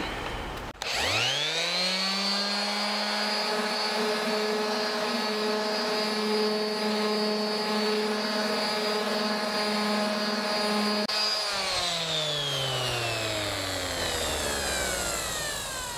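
Handheld electric detail sander starts up about a second in, its motor rising quickly to a steady whine as it sands cured epoxy putty patches flush on a fiberglass canoe hull. About 11 seconds in it is switched off and winds down, its pitch falling slowly.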